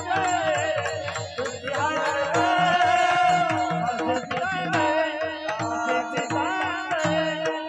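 A woman singing a Marathi devotional abhang, holding and bending long notes over a steady drone, with regular hand-drum strokes keeping the beat.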